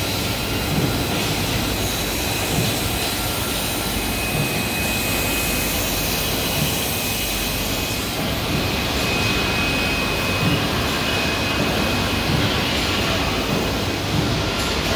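Steady machinery noise of a PVC-coating steel pipe production line running, an even hum and hiss with faint thin high whines over it.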